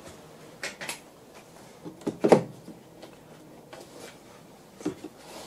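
A few separate knocks and clicks of clamps and the generator frame being handled on a wooden workbench: two light clicks just before a second in, a louder knock a little past two seconds, and another knock near the end.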